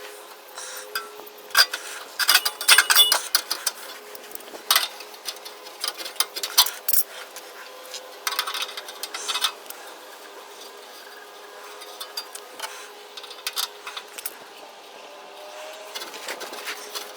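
Irregular metallic clinks, taps and scrapes as exhaust pipe sections and clamps are handled and fitted together, over a faint steady hum.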